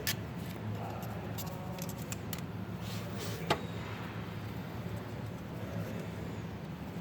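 Light clicks and scrapes of small hand tools on metal over a steady low hum, with one sharper click about three and a half seconds in.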